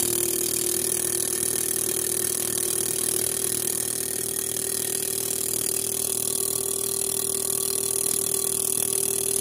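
Fuel injector cleaning and testing machine running a cleaning cycle on the engine's injectors: a steady hum with a constant high-pitched whine.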